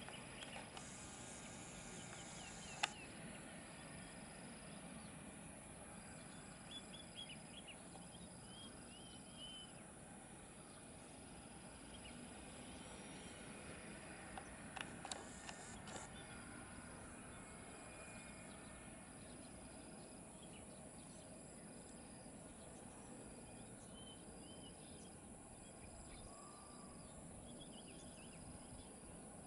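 Faint outdoor ambience. An insect calls in short, even, high-pitched pulses about every one and a half to two seconds, with a few bird chirps and a couple of sharp clicks. No jet engine is plainly heard.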